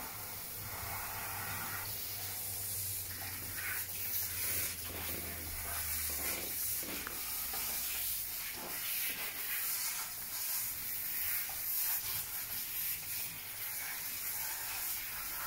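Water hissing steadily from a grooming bath's hand-held shower hose as it sprays onto a small dog's coat.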